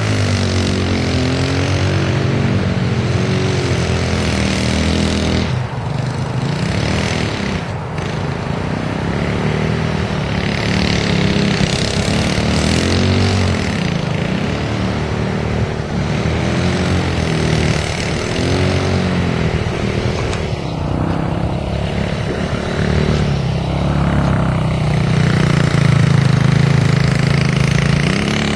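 Elstar Tank 250cc quad bike's engine revving up and down again and again as it is driven hard in tight turns.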